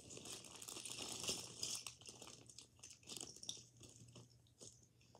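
Zip-top plastic bag of googly eyes crinkling as it is handled, with small clicks and rattles; busiest in the first couple of seconds, then a few faint ticks.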